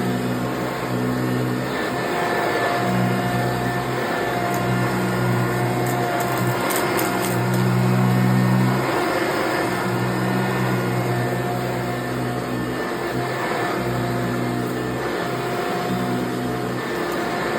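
1987 Eureka self-propelled upright vacuum cleaner running: a steady motor whine over a low hum that swells and drops every few seconds, with a few quick clicks about six seconds in.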